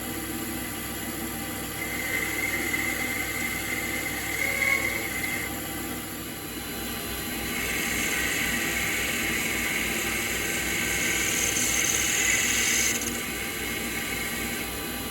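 Workshop power tool running steadily with a faint whine. A brighter hissing cutting noise builds from about halfway and stops suddenly near the end.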